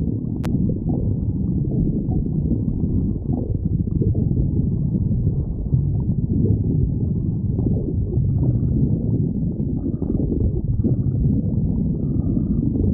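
A person's stomach growling: continuous low rumbling with irregular gurgles.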